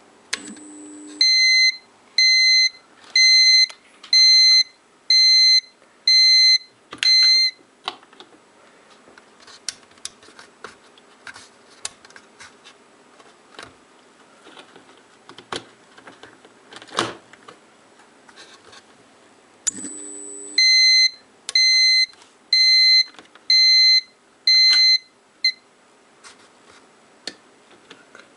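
US-210A electric manicure and pedicure machine trying to start: about a second of hum, then its control unit beeps repeatedly, about one beep a second, seven times. The hum and six more beeps come again later, with scattered clicks in between. The machine hums but does not turn on, a fault the owner puts down to the handpiece and its motor.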